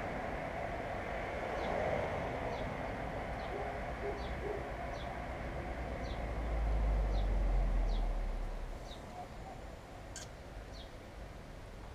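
A small bird repeating one short, high, downward chirp about every second, over a low rumble that swells around the middle and then fades.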